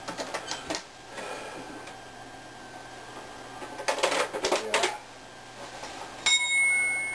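Latches of a metal carrying case click open, and its metal parts clatter as the case is lifted and set down on a bench. Near the end a ringing tone with several pitches starts suddenly and slowly fades, the sound of the 'stasis field' device being switched on.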